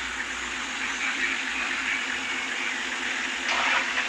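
Engine of an open safari game-drive 4x4 running steadily as it moves slowly past, with a brief louder rush about three and a half seconds in.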